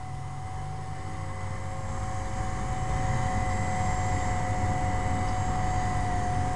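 Blade 450 X RC helicopter in flight: its brushless electric motor and rotor give a steady high whine over a low rumble. It grows louder over the first three seconds, then holds.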